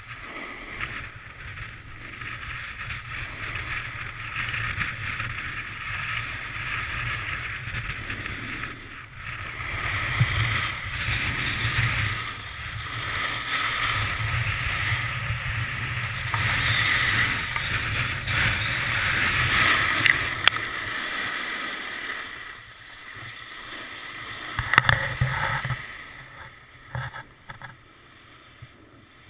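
Snowboard riding over snow: a steady rushing hiss of the board on the snow mixed with wind noise on the camera. A few sharp knocks come shortly before it dies down as the rider slows to a stop.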